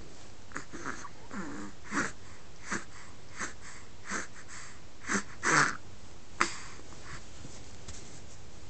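Snoring: a string of short, irregular snorts and wheezy breaths, the loudest a little past halfway.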